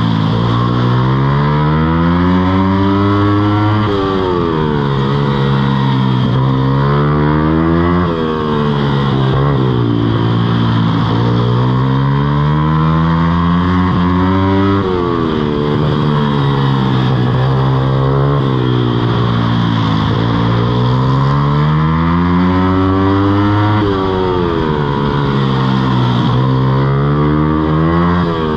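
Mini moto engine running under riding, its speed repeatedly climbing over a few seconds and then falling back, sometimes dropping sharply as the throttle is let off.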